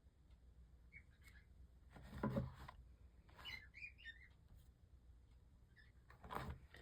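Mostly quiet room with a few faint, short bird-like chirps, one about a second in and a small cluster a little after the midpoint. A brief low sound about two seconds in is louder than the chirps, and there is a short noisy rustle near the end.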